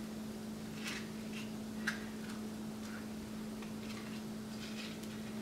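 A spoon scooping avocado flesh out of its skin: a few soft scrapes and light clicks, spaced a second or more apart, over a steady low hum.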